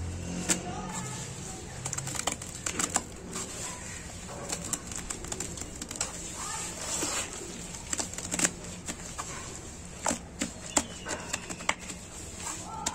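Gloved hands squeezing and kneading wet cement paste in a bucket: irregular wet squelches, slaps and small clicks.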